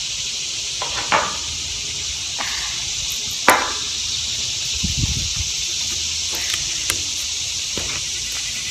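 A loud, steady chorus of insects in the trees, a constant high hiss, with a few sharp clicks as a folding pocketknife is handled and folded shut, the loudest about three and a half seconds in, and a dull thump about five seconds in.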